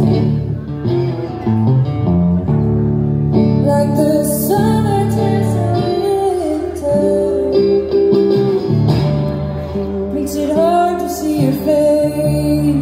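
A woman singing over her own guitar playing in a live performance. She sings a line from about four to seven seconds in and another near eleven seconds, with the guitar continuing steadily underneath.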